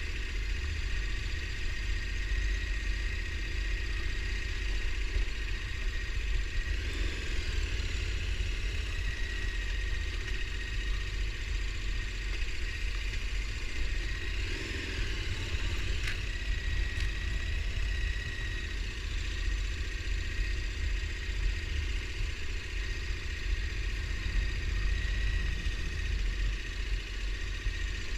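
ATV engine running steadily while riding a trail.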